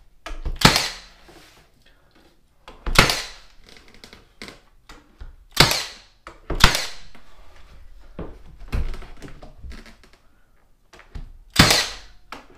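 Milwaukee 18-gauge cordless finish nailer firing single brads into window casing trim. About six sharp shots, a second to a few seconds apart.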